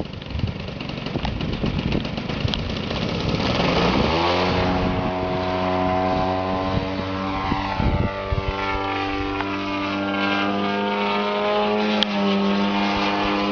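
Two-stroke MVVS 58 petrol engine of an RC model plane running with its propeller. It sounds rough at first, then its pitch climbs about four seconds in and holds steady at high revs.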